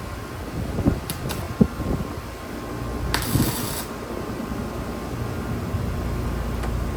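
Welding machine's cooling fan humming steadily, with a few sharp clicks in the first two seconds and a short hiss lasting under a second about three seconds in.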